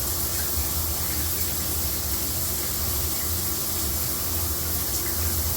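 Water spraying steadily from a homemade PVC rain shower head and splashing down in the shower: a constant hiss with a low rumble underneath. It is running with more pressure since the other head was shut off at its valve.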